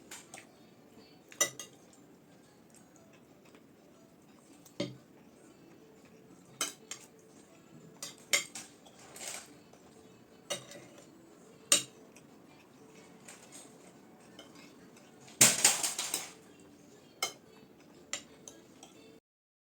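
Cutlery clinking and scraping against plates of rice and stew during eating: scattered sharp clinks every second or two, with the loudest burst of scraping about fifteen seconds in.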